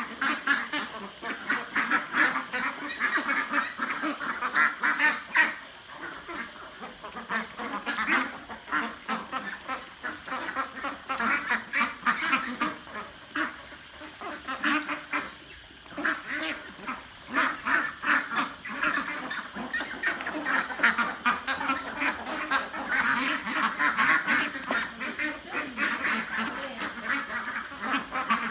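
A flock of young domestic ducks quacking and calling continuously, many voices overlapping.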